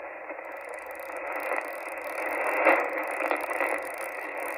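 Receiver static from a Xiegu G90 HF transceiver's speaker on lower sideband, as the dial is turned up across the empty 160-metre band. It is a steady hiss with a louder crackle about two and a half seconds in.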